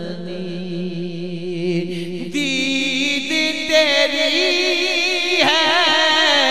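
A man singing a naat through a microphone in long, drawn-out lines whose pitch wavers and ornaments. His voice comes in much louder and fuller about two seconds in. A steady low drone runs underneath.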